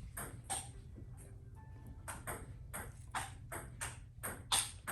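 Quick series of short sharp clicks and scrapes, about three a second, from tools working at an iPhone 13 Pro Max to separate its screen from the frame, with a brief lull about a second in.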